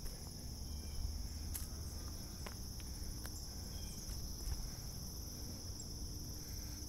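Steady, high-pitched chorus of crickets or similar insects, with a low rumble underneath and a few faint clicks.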